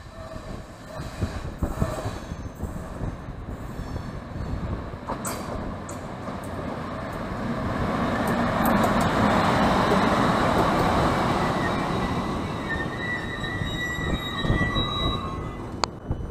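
PKP Intercity EU07 electric locomotive and its passenger coaches pulling into a station. The rumble of wheels on rails builds to its loudest as the locomotive passes, about halfway through. Near the end a high, steady brake squeal sounds as the train slows to a stop.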